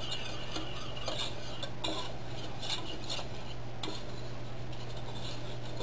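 Wire whisk stirring gravy in a stainless steel saucepan, with light, irregular clicks and scrapes of metal on metal, over a steady low hum.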